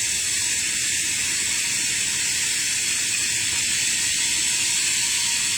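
A steady high-pitched hiss, unbroken and even in level, with a faint thin tone underneath.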